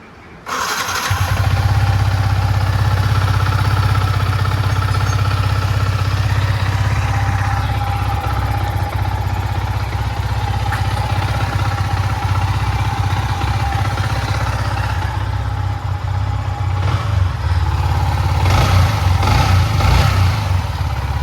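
Yamaha MT-15 V1's 155 cc single-cylinder engine starting about half a second in and then running steadily at idle, the revs rising and falling a little near the end. The timing chain has just been replaced, and the earlier rattle is gone: the engine runs smooth.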